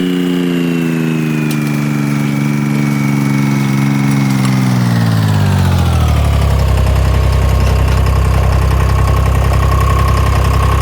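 Remote-controlled stump grinder's engine running at speed, then winding down in pitch about halfway through and settling into a steady idle.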